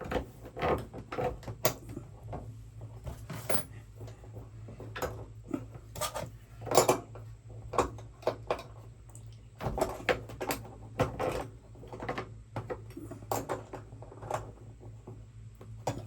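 Small metal hardware clinking and tapping irregularly: fender washers, a bolt and a nut being handled and fitted while mounting a truck-bed topper. A steady low hum runs underneath.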